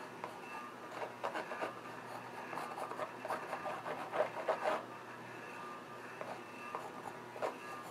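Pencil scratching across a textured canvas in short drawing strokes, busiest in the first half and then thinning out.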